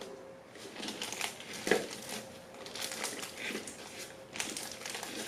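A spatula scraping Italian meringue from a stainless steel bowl into a disposable plastic piping bag, with the bag crinkling as it is handled and filled. One sharper knock comes a little under two seconds in.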